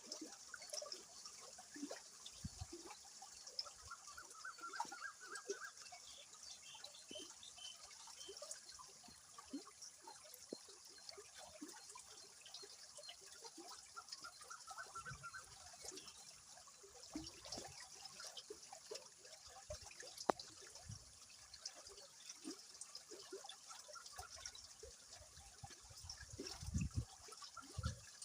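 River water flowing: a steady rushing hiss with continual irregular gurgles and small splashes, with a few stronger surges near the end. A faint high trill sounds briefly twice, about five and fifteen seconds in.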